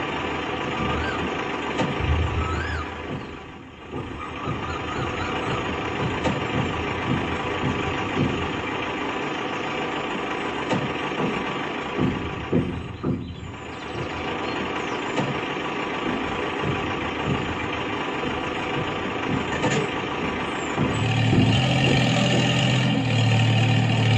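A mini tractor's motor running steadily as it ploughs, a dense even whine with a deeper hum joining near the end.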